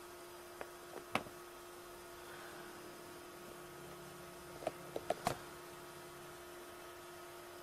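Quiet room tone: a steady low hum and hiss, broken by a few faint clicks, one about a second in and a quick run of about four close together about five seconds in.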